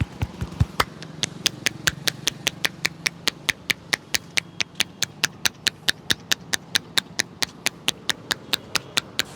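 Rapid rhythmic hand strikes on the head during an Indian head massage, about five sharp slaps a second at a steady beat.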